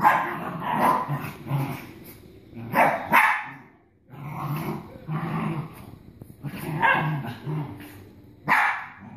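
Small dogs play-fighting: steady growling broken by sharp barks, the loudest a pair of barks near the middle and one just before the end.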